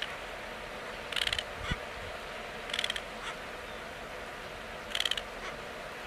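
Greater crested terns giving harsh, rasping calls three times, each a short grating note followed by a faint clipped second note. A steady hiss runs underneath.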